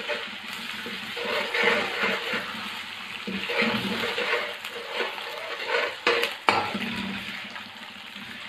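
Garlic-ginger paste, green chilli and fried onions sizzling in hot oil in a metal kadhai as they are stirred, the utensil scraping and tapping against the pan. There are a couple of sharp knocks about six seconds in.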